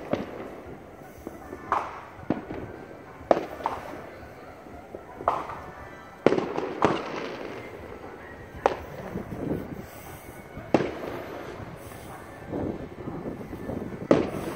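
Fireworks going off: about a dozen sharp bangs at irregular intervals, each followed by a rolling echo.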